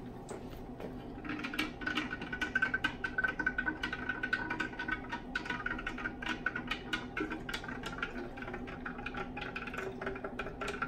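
Liquid poured from a plastic graduated cylinder into an Erlenmeyer flask of nutrient agar: a steady splashing pour that begins about a second in, with a steady pitched ring and many small splashes and clicks, over a low hum.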